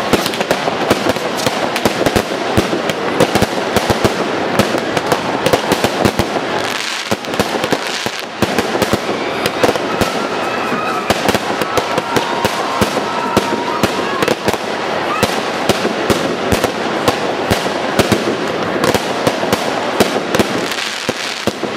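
Fireworks going off in a dense, unbroken run of crackling pops and sharp bangs from bursting shells and crackling sparks.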